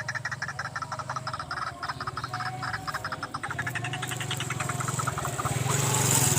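Rapid, repeated croaking animal calls, with a hiss building and the sound growing louder over the last couple of seconds.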